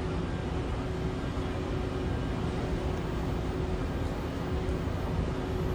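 Steady rumbling hiss of an underground metro platform, with a faint steady hum under it and no distinct events.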